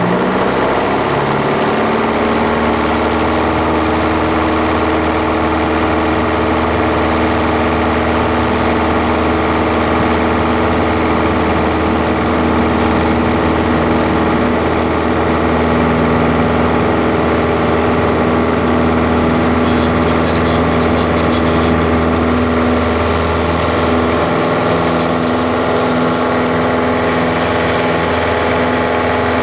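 Piper PA-28-181 Archer's four-cylinder Lycoming O-360 engine and propeller heard from inside the cockpit. The pitch rises in the first couple of seconds as power comes up, then the engine runs steadily at full takeoff power during the takeoff roll.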